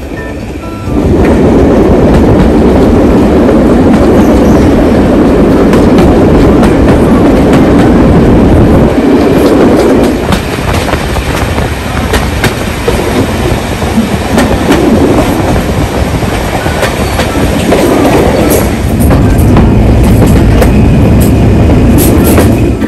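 Steady running noise of a steam-hauled passenger train's carriage heard from on board: a loud rumble with the clickety-clack of wheels over the rails. It rises to full loudness about a second in.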